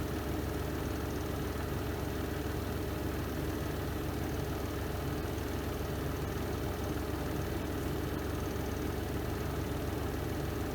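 Spin drum of a Renova semi-automatic twin-tub washing machine in its spin cycle: a steady, even motor hum with a low drone.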